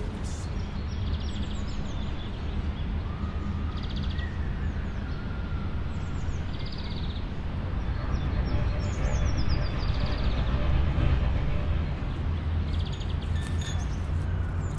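Birds chirping over a steady low background rumble; a short buzzy trill repeats every few seconds, with quick falling chirps between.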